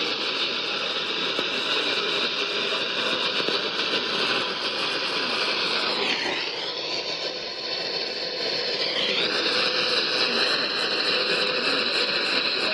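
Radio static: a steady hiss from a receiver on a weak or empty signal. It dulls and dips in level about six seconds in, and comes back about three seconds later.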